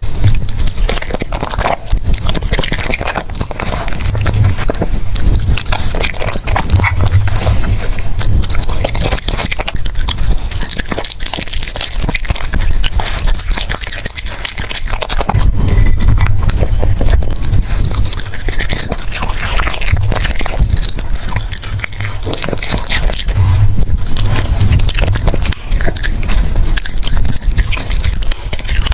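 French bulldog eating raw food close to the microphone: a continuous run of wet chewing, biting and crunching.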